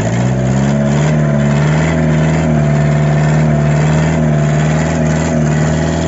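Small boat-mounted engine driving a rope capstan winch that hauls in the fishing net's line. It revs up in the first second, then runs steady.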